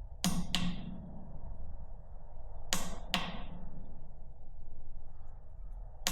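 Push-button switch on a cheap solar LED light pressed three times, each press a sharp double click (down and up), about three seconds apart, cycling through the light's modes in search of the plain light setting.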